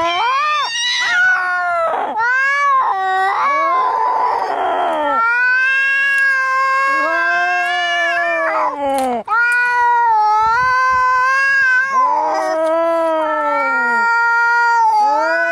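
Angry cats caterwauling in a fight: long, wavering yowls that rise and fall in pitch, with a hiss about four seconds in.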